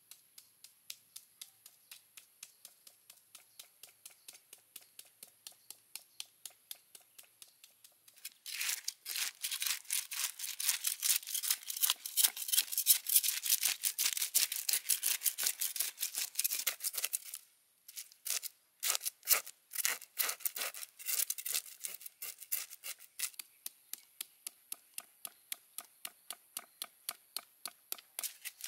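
A knife blade scraping the scales off a snakehead fish on a wooden cutting board, in quick, even strokes of about three or four a second. The strokes are faint at first, loud through the middle with a short break, and softer near the end.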